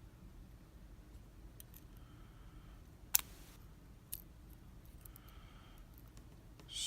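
A few faint, light clicks, with one sharper click about three seconds in: small metal lock pins and parts being handled while the Abus/Brady 71/40 padlock is taken apart.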